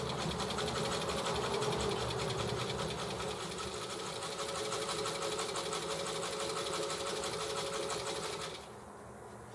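Electric sewing machine stitching a hem through heavy sling-chair mesh fabric, its needle running at a fast, even stitch rate. It stops abruptly near the end.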